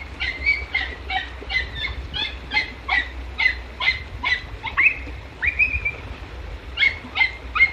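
Podenco puppies giving tongue while hunting: rapid, repeated high-pitched yelps, two to three a second, with a short lull about six seconds in.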